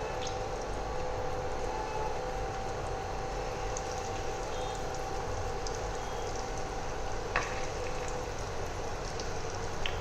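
Masala-coated boiled eggs sizzling as they fry in hot oil in a pot, a steady crackling hiss, with one sharp tap about seven seconds in.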